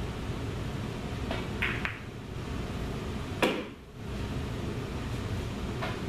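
A pool shot: short clicks of the cue tip and balls about a second and a half in, then a single louder ball clack about three and a half seconds in, over a steady room hum.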